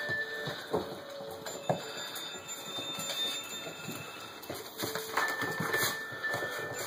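A puppy pawing and mouthing a paper bag on a wooden floor, with scattered rustles and knocks; the sharpest knock comes about a second and a half in. Faint thin high steady tones sound at times, one held for more than a second near the end.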